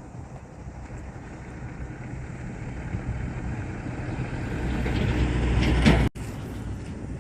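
Tata Indigo CS car driving: engine and road noise getting steadily louder for about six seconds, then cutting off abruptly to a quieter stretch of similar running.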